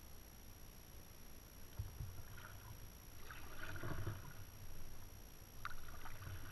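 Kayak being paddled: the blades dip and splash about every two seconds, with low knocks, and a sharp click near the end.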